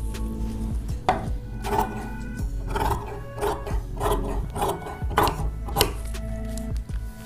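Large steel tailoring shears cutting through cotton fabric on a wooden tabletop, snipping about nine times at roughly two cuts a second, with the blade rubbing along the table.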